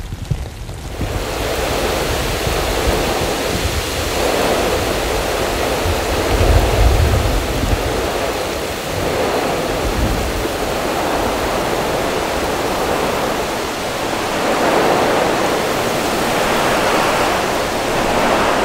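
Heavy thunderstorm rain pouring down steadily, setting in about a second in, with a low rumble around six to seven seconds in.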